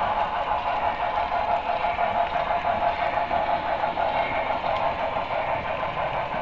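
HO-scale Broadway Limited 2-10-4 model steam locomotive running steadily along the track, heard from a camera riding on the train: a continuous mechanical running and rolling noise.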